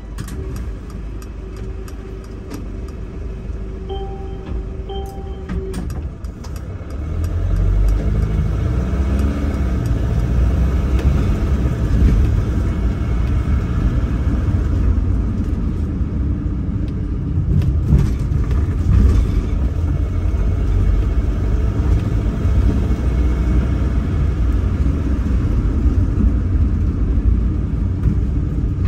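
Bus engine and cabin noise heard from inside the bus. It is quieter at first while the bus stands, with a short beeping tone about four seconds in. About seven seconds in it grows into a loud, steady low rumble as the bus pulls away and drives on.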